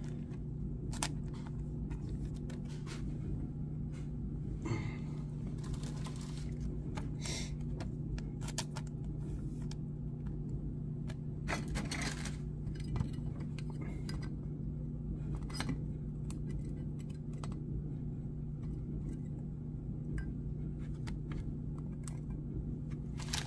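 Trading cards in clear plastic sleeves and holders being handled and set upright on plastic stands: scattered light clicks, taps and rustles, over a steady low hum.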